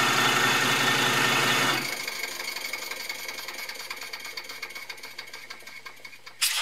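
16 mm scale live-steam model of a Hunslet 0-4-0 saddle tank running with its wheels clear of the track, its cylinders and inside Stephenson valve gear making a fast, even beat. About two seconds in the sound drops sharply in level and then fades gradually, and a short loud noise comes near the end.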